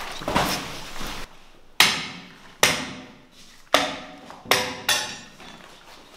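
Hammer blows: five sharp strikes at uneven intervals, starting about two seconds in and spaced roughly a second apart. The last two come close together, and each blow rings on briefly after the hit.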